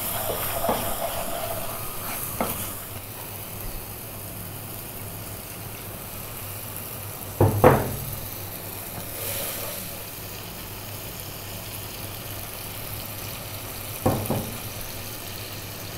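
Onion, garlic and berbere spice paste sizzling steadily in a pot as it fries with a little water dripped in. A wooden spoon stirs and scrapes it for the first couple of seconds. Two brief knocks come about seven and a half seconds in and again near the end.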